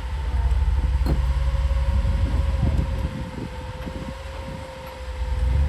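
Jeep Wrangler engine running at low revs while rock crawling, with a steady thin whine above it. The engine eases off about three seconds in and builds again near the end.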